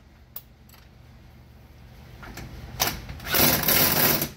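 A small electric motor whirring in one loud burst of about a second near the end, after a low hum with a few sharp clicks.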